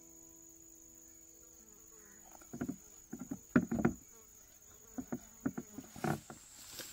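A steady high-pitched insect buzz runs underneath. From about two and a half seconds in, bursts of leaves and stems rustling and snapping with footsteps come in as a person pushes and climbs up through dense undergrowth.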